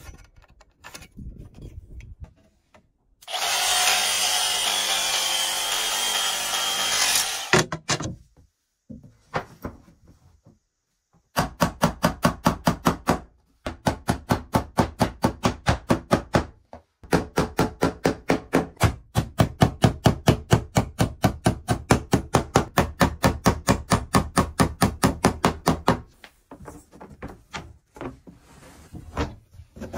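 A power saw cuts through a wooden board for about four seconds. A long run of quick hammer taps follows, about four or five a second with two short pauses, as small nails are driven into wooden baseboard trim.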